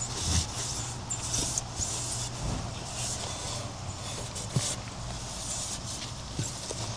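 Repeated short scrubbing or wiping strokes on a refrigerator's surface, over a steady low hum.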